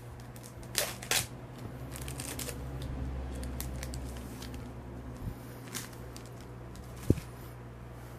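Trading-card pack wrapper crinkling and cards being handled, with a few sharp crackles about a second in, over a steady low hum.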